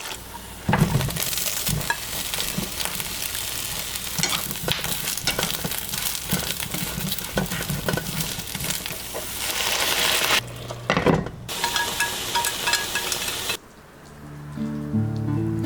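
Food sizzling in a frying pan while it is stirred, with frequent clicks and scrapes of the utensil against the pan. Near the end the sizzling stops and acoustic guitar music begins.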